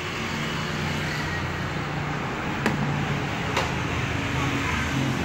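Street traffic noise with a motor vehicle's engine running steadily, and two sharp clicks about a second apart near the middle.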